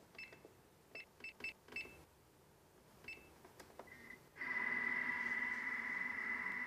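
Vorwerk Thermomix TM31 control panel beeping as its timer buttons are pressed: about six short, identical high beeps, then one lower beep. About four seconds in, a louder steady hum with a high tone sets in.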